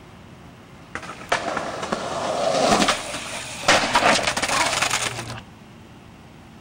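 Skateboard wheels rolling on concrete, growing louder. Nearly four seconds in comes a loud clack of the board hitting the ground, followed by rolling and scraping that cuts off suddenly.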